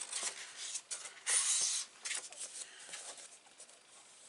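A sheet of thin patterned paper being handled and folded in half. It rustles with light taps, with a louder brushing rustle about a second and a half in.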